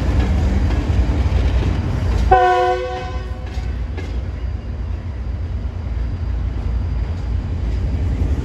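Pakistan Railways GU40 diesel-electric locomotive running with a steady low rumble as it moves through the yard. A locomotive horn sounds once, for about a second, a little over two seconds in.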